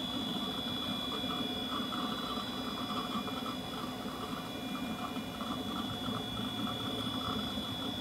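Tray-loading iMac G3 running as it boots Mac OS 9: a steady hum with a constant thin high-pitched whine, and the irregular chatter of its hard drive working through the start-up.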